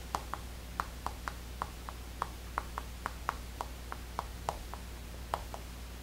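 Chalk tapping and scratching on a chalkboard as words are written: a string of light, uneven ticks, about three a second, stopping near the end.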